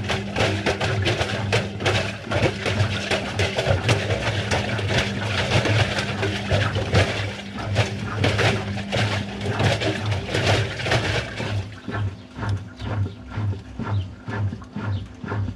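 Washing machine running with confetti-filled balloons tumbling in the drum: a steady motor hum under a dense clatter of knocks and rubbing. Near the end the clatter thins and a regular pulsing of a little under two beats a second remains.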